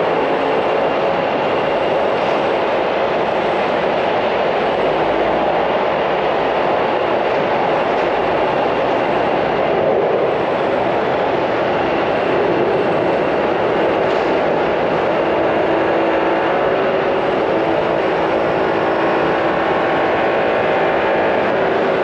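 Steady traffic noise from an airport terminal's pick-up/drop-off roadway, with shuttle buses and cars idling and moving. It is a continuous, even wash of sound with a faint hum of steady tones in it.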